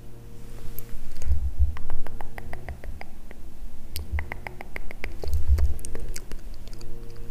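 Quick runs of light clicks and taps close to the microphone, several a second, mixed with a few low thumps. These are makeup items being handled and tapped.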